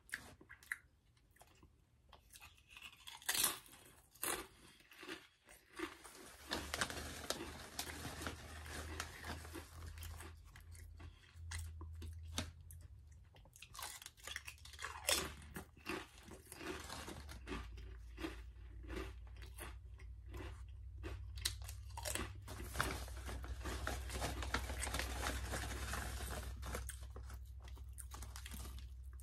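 Close-up crunching and chewing of wavy potato chips, bite after bite, with sharp crunches among steadier chewing.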